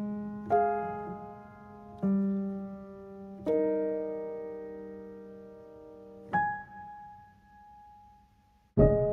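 Background music: slow, soft piano chords, each struck and left to ring away, with a near-silent pause before the music comes back in near the end.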